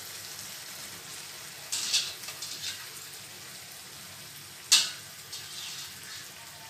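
Tomato and okra sauce sizzling steadily in a frying pan. A few short scraping bursts come about two seconds in, and there is one sharp click a little under five seconds in.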